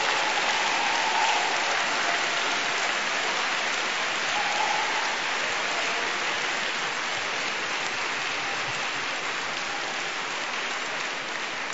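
A large audience of delegates applauding steadily in a big hall after a speech ends. The clapping slowly gets softer.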